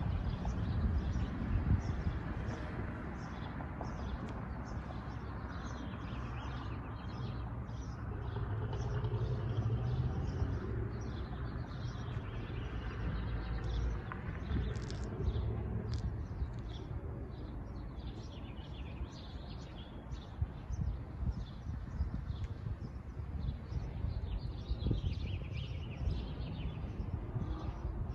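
Small birds chirping and calling repeatedly, over a steady low rumble of street traffic.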